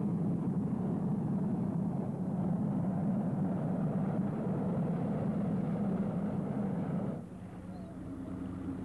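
Steady engine drone inside a small passenger aircraft's cabin, with a strong low hum. About seven seconds in it cuts suddenly to a quieter, steady motor launch engine.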